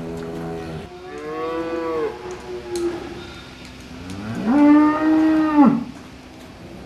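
A cow mooing in three calls: one that ends under a second in, a shorter wavering moo, then the loudest, a long moo near the end that rises, holds steady and drops away.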